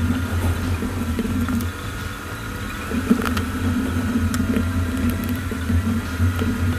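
A steady low whir with a faint high tone over it, with a few faint light clicks of metal tweezers touching a phone frame.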